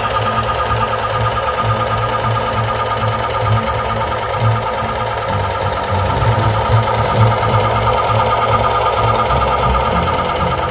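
A toy RC truck's miniature mock engine running: a small electric motor spinning the blower fan and working the plastic pistons. It makes a steady whirring clatter, with a constant high whine over an uneven low rattle.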